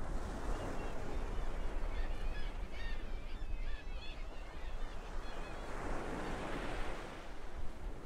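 Seagulls calling over breaking ocean surf: a flurry of short, wavering cries, thickest in the middle, above the steady wash of the waves, which swells about a second in and again near the end.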